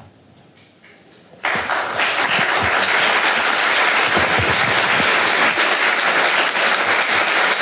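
Quiet, then an audience starts applauding suddenly about a second and a half in, and the clapping carries on steadily.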